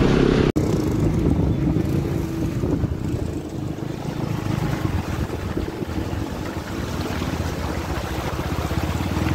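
Motorcycle engine running steadily as the bike rides through a shallow stony stream, with water splashing around the wheels and wind buffeting the microphone. The sound drops out for an instant about half a second in.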